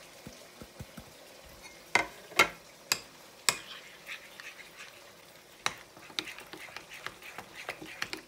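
Metal spoon stirring spices into yogurt in a glass bowl, clinking against the glass: a few faint taps, then several sharp clinks about two seconds in, followed by quicker, softer scraping and tapping as the mix is stirred.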